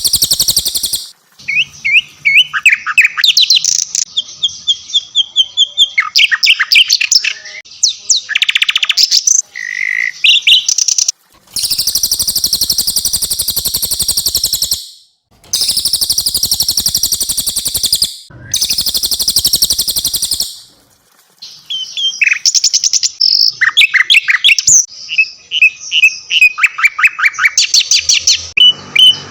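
Songbirds singing loudly: a cililin and a sikatan londo. Three times in the middle, a dense, very rapid high trill runs for two to three seconds at a stretch. Before and after these, varied whistled notes, sliding chirps and quick chip series come one after another.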